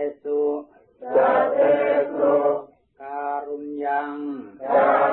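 Pali Buddhist chanting by voices in unison, each syllable held on a steady, level pitch in phrases separated by short breaths.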